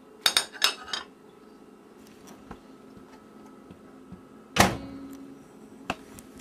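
A quick run of sharp clicks and clatter in the first second, then a single loud knock with a short ring about four and a half seconds in, and a few faint ticks near the end, over a faint steady hum.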